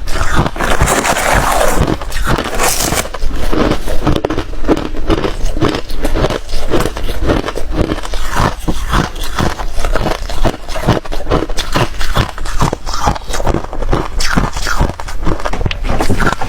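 Hard ice being bitten and chewed close to the microphone: a steady run of loud crunches, about three a second.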